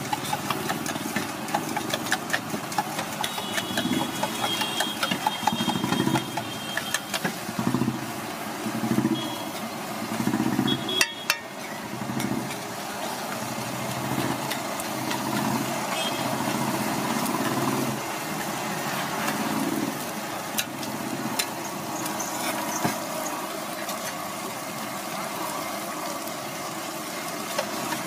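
Metal spatula clattering and scraping on a large flat griddle (tawa) as it chops and stirs a bread-omelette mixture, with a steady sizzle of frying and many sharp clicks from the spatula. A low engine rumble runs underneath.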